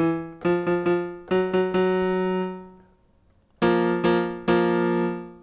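Piano voice played from a RockJam RJMK 25-key mini keyboard controller: a quick run of short notes, then a held note that dies away. After a brief pause two more notes are struck about a second apart and ring out.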